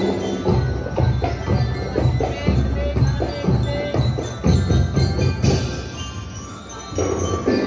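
Marching drum-and-bell band playing a march: a drumline beating steadily with short glockenspiel-like bell notes over it.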